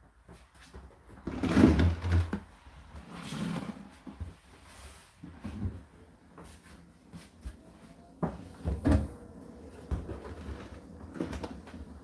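A series of irregular knocks and thumps, the loudest a heavy thump about a second and a half in.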